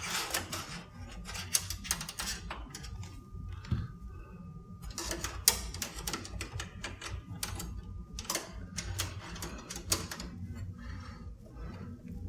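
Irregular clicks, taps and light knocks of hands working on parts inside a computer case, removing and refitting a component.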